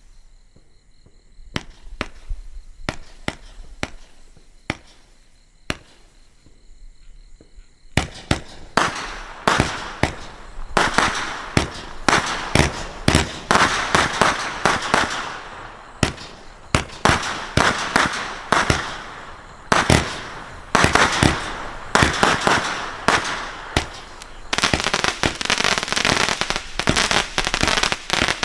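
Winda 126-shot 500-gram cake firework firing: sharp launch thumps and bursts a second or so apart at first, then from about eight seconds in a rapid, dense barrage of shots and breaks with crackling tails, turning into almost continuous crackle near the end.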